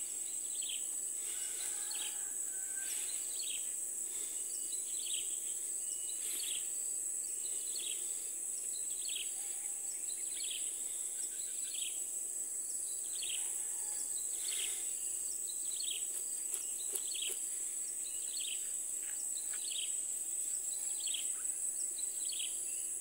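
Tropical forest ambience: a steady, high-pitched insect drone, with a short chirp repeating a little more than once a second.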